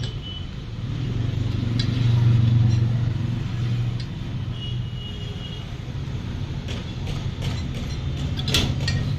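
A steady low engine-like hum, loudest about two seconds in, with scattered clicks and knocks from work on a tyre and tube; the sharpest knock comes near the end.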